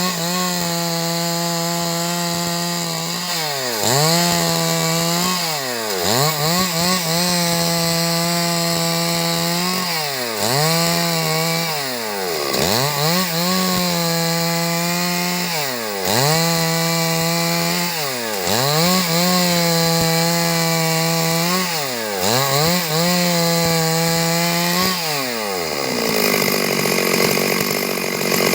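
Stihl 382 two-stroke chainsaw running at high revs while ripping wood. Its pitch dips sharply and recovers about every three seconds, then near the end it drops back to idle.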